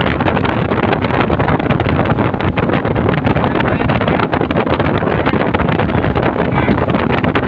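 Wind buffeting the microphone aboard a runabout underway, with the rush of water and the running of its 1987 Johnson 140 V4 outboard mixed in beneath. It is loud and steady, with constant crackling gusts.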